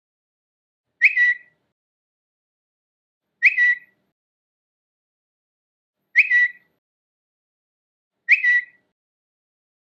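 Twitter notification sound: a short, high two-part chirp like a bird's tweet, played four times with silent gaps of two to three seconds between.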